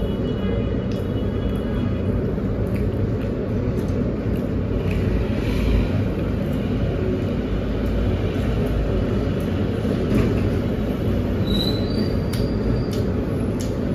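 Steady low rumbling background noise, with scattered faint clicks.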